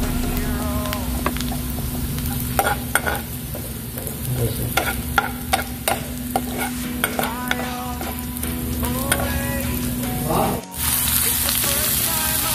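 Sliced onion, garlic and ginger sizzling as they sauté in a frying pan, with a metal spoon clicking and scraping against the pan as they are stirred. After a brief break near the end, the sizzling goes on with raw chicken pieces in the pan.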